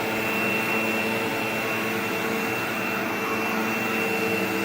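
Vacuum cleaner running steadily, its motor giving a steady high whine over the rush of air.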